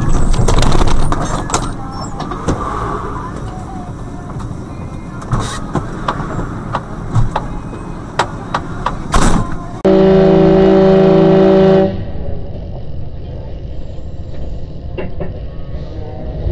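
A vehicle horn sounding one long, steady blast of about two seconds that cuts off sharply, the loudest thing here, over traffic and cab rumble with scattered knocks and clicks.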